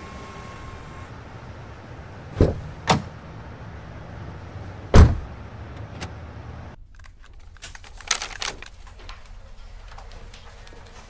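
Car door clunking open and then slamming shut, the heavy thud about five seconds in being the loudest sound, over a low steady rumble. The rumble cuts off, and a few light clicks and taps follow.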